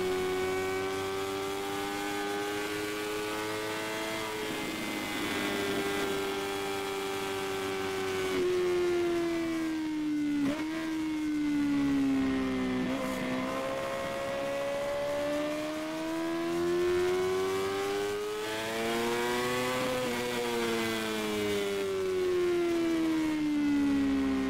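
Sport motorcycle engine at speed on a race track, its revs climbing and falling through the corners. The pitch drops suddenly a few times in the first half, with gear changes, then rises steadily and falls away again near the end.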